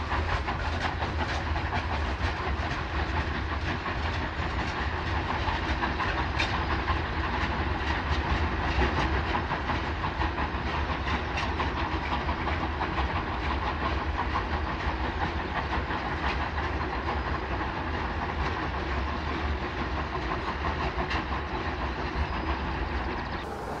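Steam locomotive hauling a freight train: continuous exhaust chuffing and hiss over a low rumble and the clatter of wheels on rail joints. The sound drops abruptly to a quieter texture right at the end.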